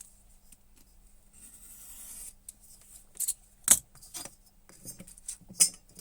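A leather edge beveler shaving along the edge of a piece of leather: one soft scraping stroke lasting about a second, followed by several sharp clicks and knocks of the tool and leather being handled on the bench, the loudest a little past the middle.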